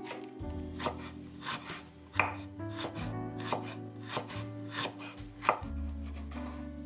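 Chinese cleaver chopping through thin slices of fresh ginger into juliennes on a wooden cutting board: a quick, uneven run of knife knocks on the board, about three a second, thinning out near the end.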